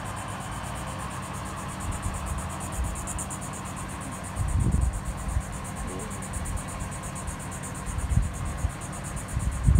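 Insects chirping in a steady, high, rapidly pulsing drone, with low rumbles about four and a half seconds in and again near the end.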